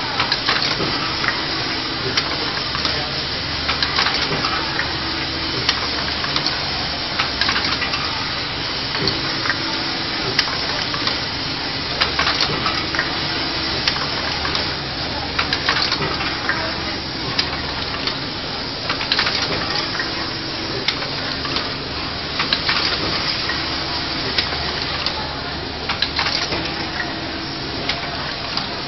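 Automatic motor assembly machine running: a steady hiss with frequent clicks and clacks from its moving stations, and a low hum that switches on and off every couple of seconds.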